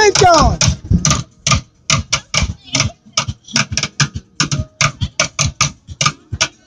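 Improvised lamp drum played in a fast, uneven run of sharp hits, about four or five a second. A brief voice cries out right at the start.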